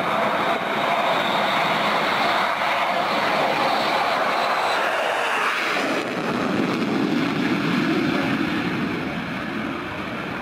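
Fighter jet engines at high thrust for takeoff: a loud, steady rushing noise that shifts to a lower rumble about six seconds in.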